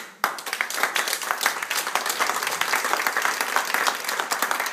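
Audience applauding, the clapping starting abruptly just after the start and going on steadily.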